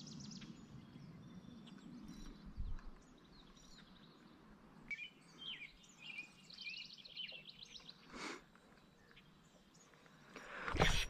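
Songbirds singing outdoors: a rapid high trill of repeated notes at the start and again midway, with scattered short chirps between. A louder rustling noise swells near the end.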